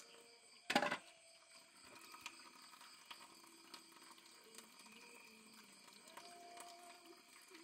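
Faint night-time outdoor ambience with steady high-pitched insect trilling and faint water. A single short, loud noise comes about a second in.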